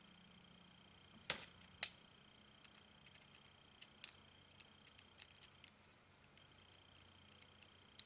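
Faint clicks and light ticks of small metal parts being handled: a flathead screw threaded into a metal RDA deck and turned with a small precision screwdriver. Two sharper clicks come between one and two seconds in, then scattered soft ticks.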